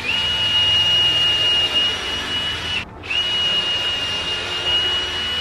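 Power drill driving screws into a 2x4 frame corner: two runs of a steady high motor whine, each just under three seconds, with a brief stop about three seconds in. Each run starts and stops sharply.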